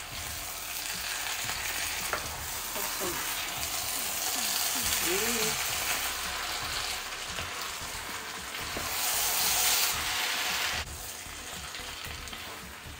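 A pot of rice with turkey and vegetables sizzling on the heat while a spoon stirs through it. The sizzle eases off about eleven seconds in.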